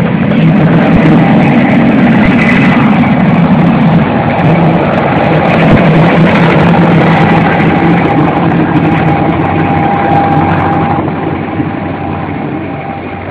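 Air-ambulance helicopter lifting off and flying away, its rotor and engine running loud and steady, then fading over the last few seconds as it moves off.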